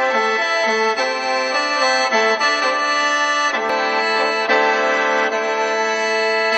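Khaen, the bamboo free-reed mouth organ of Laos and Isan, playing a lively traditional melody over steady held drone notes.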